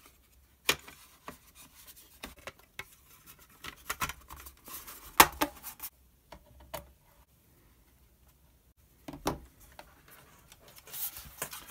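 Black plastic cover of a Volvo RTI display unit being fitted into place and fastened with a small screwdriver: scattered clicks, knocks and rubbing of plastic on metal. The sharpest click comes about five seconds in.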